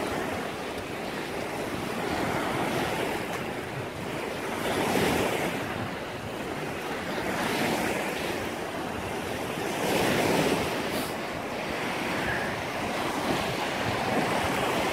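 Small lake waves breaking and washing up a sand beach, the surf swelling and falling back every two to three seconds, with wind on the microphone.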